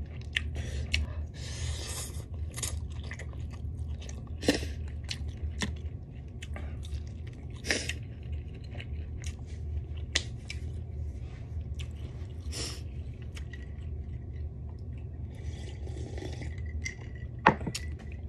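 Close-miked chewing of a mouthful of black bean noodles, with frequent wet mouth clicks and smacks scattered throughout, over a steady low hum.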